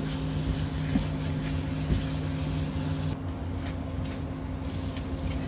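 Spatula stirring and scraping thick, cooked-down mango jam in an aluminium pan, with a few light knocks against the metal. Under it runs a steady low hum, part of which cuts out about three seconds in.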